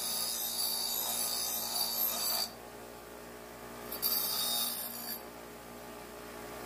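Bench grinder with steel held against its spinning wheel, a harsh high hiss of the wheel scouring rust off the cut plate before welding. The grinding stops about two and a half seconds in, returns briefly about four seconds in, and in between only the grinder's motor keeps running.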